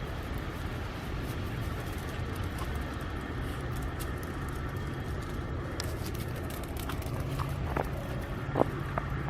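Steady outdoor rumble with a low hum that grows stronger near the end, and a few faint clicks.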